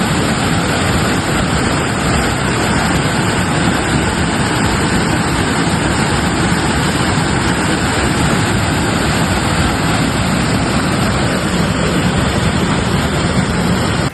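Loud, steady rush of a mountain river's fast-flowing water, which cuts off suddenly at the end.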